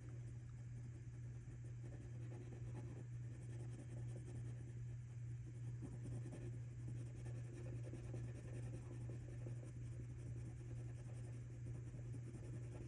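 Derwent Lightfast coloured pencil scratching softly on paper in small shading strokes, over a steady low hum.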